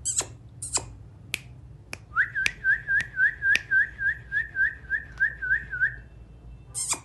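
A parrot making several sharp clicks, then whistling one short note over and over, about three or four times a second for some four seconds, with another sharp click near the end.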